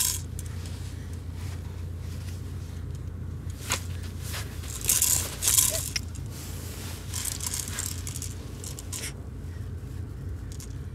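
Small hard objects rattling and scraping in scattered clicks, with louder clattering about four to six seconds in, over a steady low hum.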